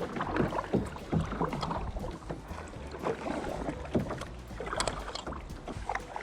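Kayak being paddled: paddle strokes dipping and splashing with irregular knocks against the hull, over a low steady rumble.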